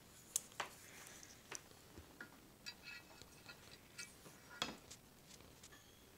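Scattered light clicks and taps of metal on metal as etched brass parts and a metal weight are set down on an aluminium baseplate, with a brief faint ringing about three seconds in.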